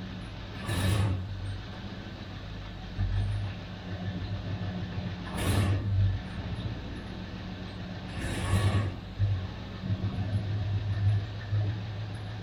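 A vehicle engine running with a low, uneven rumble. Three short hissing bursts come about a second, five and a half seconds and eight and a half seconds in.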